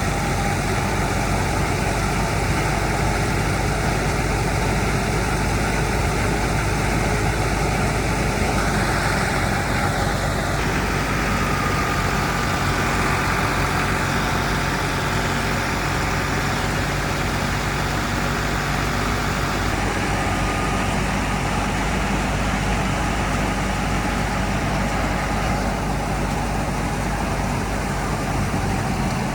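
Engine of harvesting machinery running steadily. Its tone shifts slightly about ten seconds in and again about twenty seconds in.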